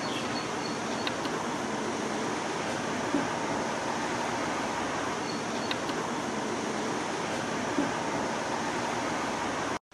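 Steady outdoor background noise, an even hiss with no clear engine note, with a few faint high chirps and two soft knocks, cutting off abruptly just before the end.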